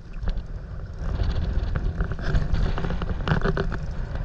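Wind buffeting the microphone in a steady low rumble that gets louder about a second in, with water lapping against an inflatable paddleboard and scattered sharp splashes and knocks.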